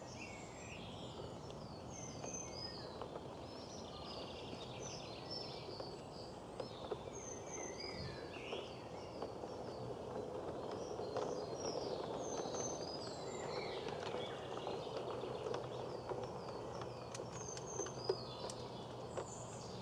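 Garden birds chirping and singing throughout, over the low rumble of a battery-powered LGB Stainz model locomotive and its coaches running on garden track. The rumble swells about halfway through, with a few sharp clicks near the end.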